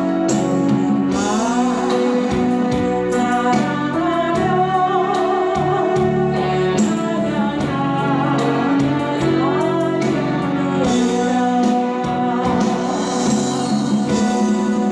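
A Christian praise song from a medley: a singing voice with held, gliding notes over steady instrumental accompaniment that includes guitar.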